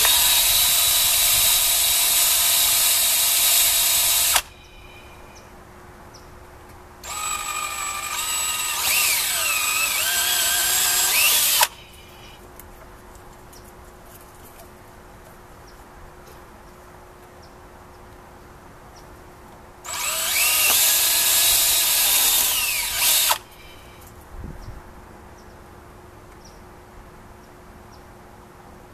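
DeWalt cordless drill boring quarter-inch holes through small PVC pipe: three runs of about four seconds each, the motor's pitch dipping and wavering as the bit cuts in the second and third.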